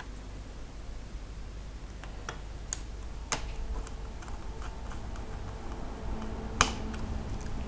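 Scattered small clicks and taps from handling laptop internals while an M.2 SSD is put back in: a few light clicks around two to three and a half seconds in, one sharper click about six and a half seconds in, and a quick cluster of ticks near the end.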